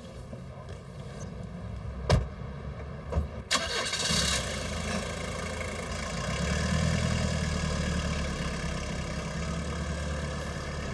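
Car doors shut with sharp knocks about two and three seconds in. Then the car's engine starts and runs with a steady low hum, which grows somewhat louder midway.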